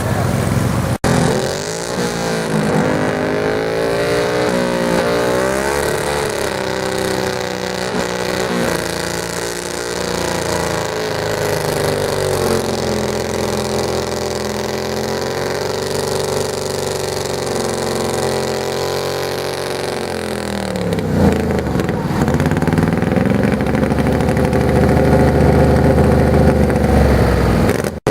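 Garden tractor engine running at high revs under load while pulling a weighted sled. Its pitch wavers, sags sharply about two-thirds of the way through, then climbs back and runs louder.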